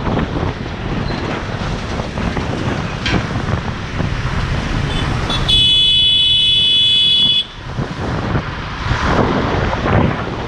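Wind on the microphone and traffic noise from a motorcycle ride through city traffic, with a vehicle horn sounding loud and steady for about two seconds around the middle.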